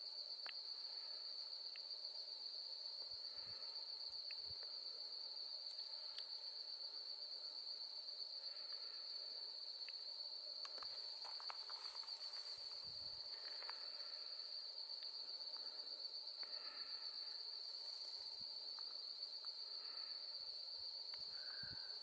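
Insect chorus: a steady, high-pitched, finely pulsing trill, with a few faint short chirps here and there.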